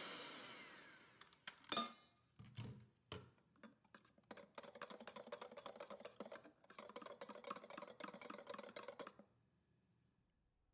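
Electric hand mixer beating egg whites, its motor winding down and stopping about a second in. A few clacks and knocks follow, the loudest about two seconds in. Then a wire whisk scrapes and clicks rapidly against a stainless steel bowl for about five seconds, finishing the whites to stiff peaks, and stops shortly before the end.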